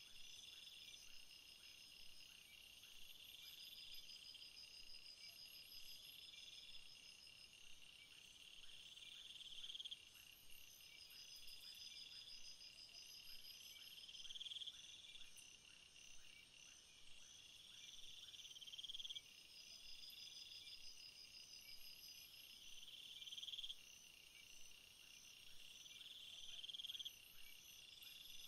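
Faint night chorus of crickets and other insects, trilling steadily. One insect's buzzing call swells and then cuts off sharply every four to five seconds.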